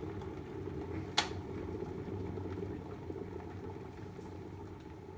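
Burr coffee grinder motor running with a steady hum that slowly grows quieter, with one sharp click about a second in.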